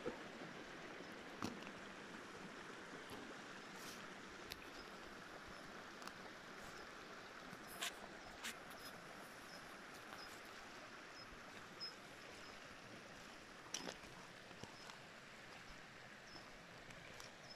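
Faint, steady rushing of a stream flowing over stones, with a few scattered clicks and knocks.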